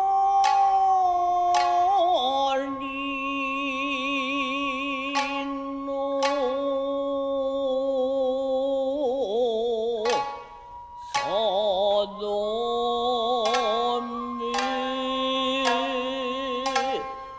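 Traditional Japanese dance accompaniment: a singer holding long, wavering notes, punctuated by sparse plucked shamisen strokes.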